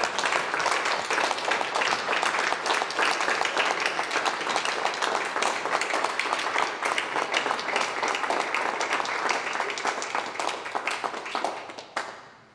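A roomful of people applauding, a steady dense clapping that fades away near the end.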